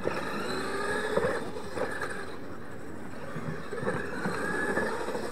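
Two RC monster trucks racing over dirt: a high whine from their motors and drivetrains, rising in pitch as they speed up, with a few short knocks as they hit and land off the jumps.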